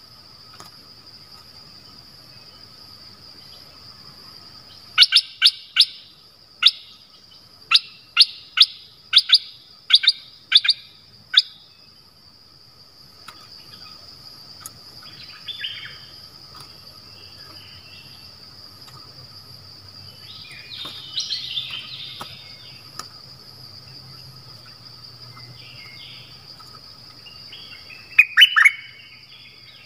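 Caged decoy bulbul (นกดอกแตง) calling: a quick run of about a dozen sharp, loud chirps, then softer chattering phrases and a short loud burst near the end. A steady high insect drone runs underneath.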